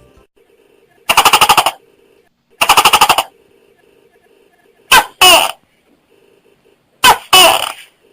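Tokay gecko calling: two rapid rattling bursts, then two 'to-kek' calls, each a short note followed by a longer, falling one.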